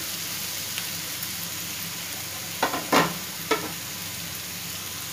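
Chopped onions sizzling steadily as they sauté in mustard oil in a kadai, stirred with a wooden spatula. Three sharp knocks about halfway through, the spatula striking the pan.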